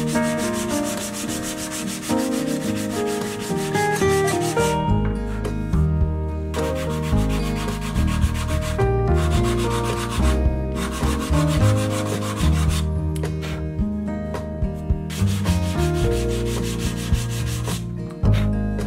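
Sandpaper on a hand-held sanding pad rubbing back and forth across the edges of layered plywood. The strokes are rapid and continuous for the first few seconds, then come in spells with short pauses, over background music.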